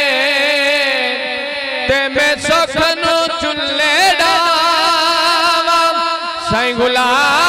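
A male voice sings a devotional Punjabi naat in long, wavering melismatic notes. The line breaks into shorter notes about two seconds in, then settles back into long held notes.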